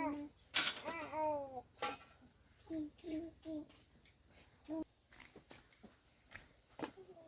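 A small child gives a short falling whimper, then several brief vocal sounds, over a steady high-pitched insect drone. A sharp knock comes about half a second in, and a few lighter clicks follow.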